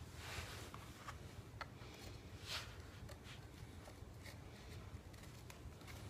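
Faint scrapes and light knocks of PVC pipes and fittings being handled and pushed together, a handful of short rubbing sounds with the strongest about halfway through, over a low steady room hum.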